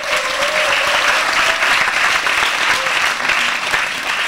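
Audience applauding in a hall, a dense steady clapping that begins to thin out near the end.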